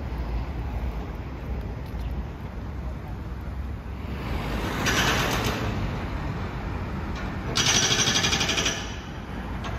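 City street ambience with a steady low traffic rumble. About eight seconds in, a loud, rapid mechanical rattle lasts about a second.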